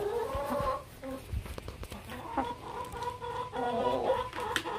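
A hen calling with drawn-out, even-pitched clucks, one short and then a longer one from about halfway in, while she is handled, with light rustling and small knocks around her.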